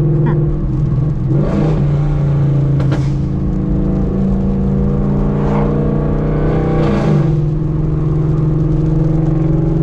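Ford Mustang GT's Coyote 5.0 V8 on a burble tune, running through long-tube headers, an X-pipe and a muffler delete, heard from inside the cabin while driving. The exhaust drone holds a steady pitch, dipping and shifting about one and a half seconds in and again about seven seconds in as the revs change.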